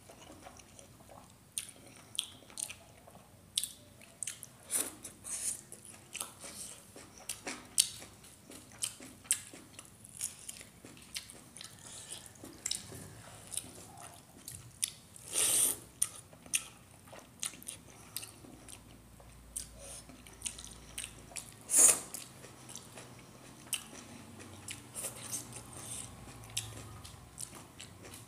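Close-up eating sounds of a man eating rice and cooked leafy greens with his hand: chewing with wet smacking clicks, and two louder crisp snaps partway through.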